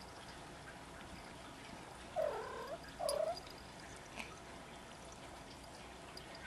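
Cat mewing twice, two short calls close together, each dipping and rising in pitch. A faint click follows about a second later.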